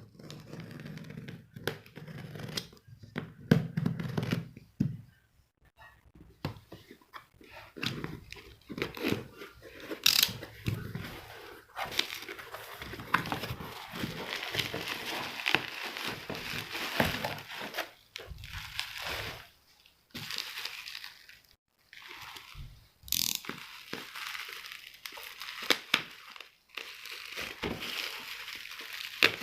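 Packaging being handled and torn open: irregular crinkling and rustling with scattered sharp clicks and crackles, stopping briefly now and then.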